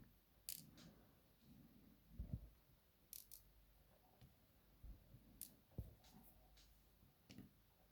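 Faint, scattered clicks and soft taps of small steel lock pins being handled and dropped into a slot of a pin tray.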